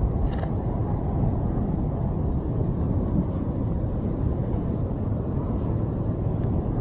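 Steady low roar of a tornado and its strong winds, a dense rumbling noise with no let-up.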